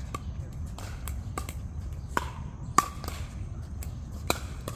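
Basketballs bouncing: irregular sharp bounces, each with a short ring, the loudest a little under three seconds in, over a low steady rumble.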